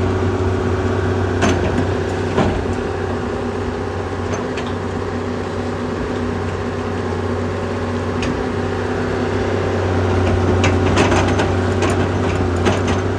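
An engine running steadily with a low drone, with a few sharp knocks now and then, several of them close together near the end.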